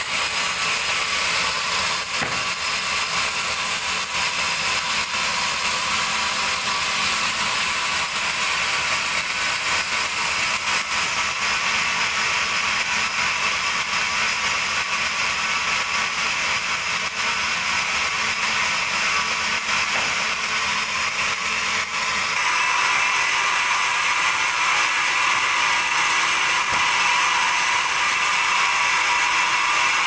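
Vertical band sawmill running as a teak log on its carriage is sawn: a steady, loud mechanical whir and hiss of the blade. Its tone shifts about two-thirds of the way through.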